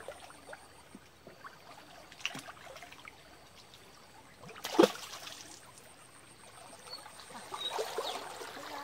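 Water splashing and sloshing as legs wade through a shallow stream, with one louder, sudden sound near the middle and busier splashing toward the end.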